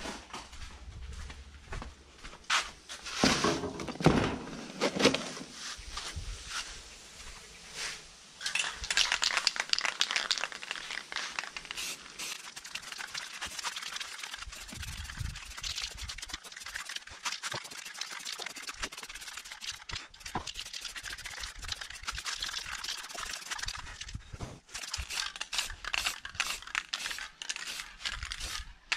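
Aerosol spray paint can hissing in many short bursts while an engine casing is spray-painted, after a few seconds of rustling and handling knocks.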